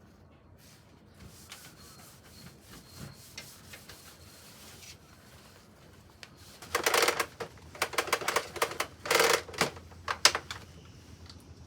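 Rapid clattering and rustling from hands-on cleaning work, in several loud bursts of quick clicks between about seven and ten seconds in, after a quiet stretch.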